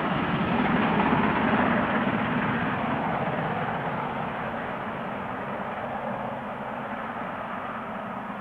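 Two steam locomotives, an LNER A1 Pacific and a GWR King class, double-heading a heavy train at speed, their exhausts merging into one continuous blast. It is loudest about a second in, then slowly fades as the train draws away.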